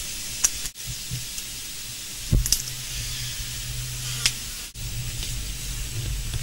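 Bare hands tearing open and gutting a pademelon carcass: a few soft wet clicks and a dull thump about two and a half seconds in, over a steady hiss and low hum.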